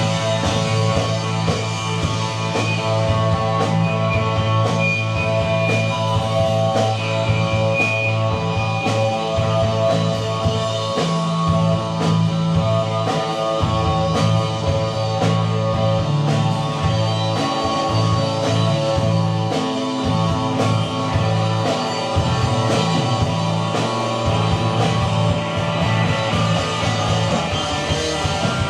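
Live rock band playing: electric guitar and bass held over a steady drum beat.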